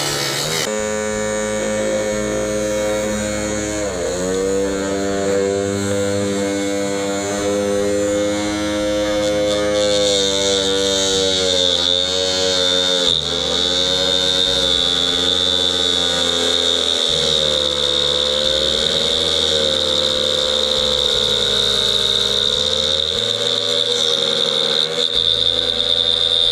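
Homemade cutter's 12 V 555 DC motor spinning a small cutting disc, a steady whine whose pitch sags several times as a thin wooden stick is pressed into the disc, with a higher whine joining about ten seconds in.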